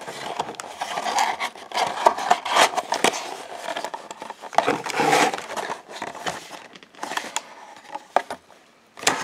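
Cardboard display box being folded and pressed into shape by hand: irregular rustling and scraping of card with sharp clicks and taps, quieter near the end.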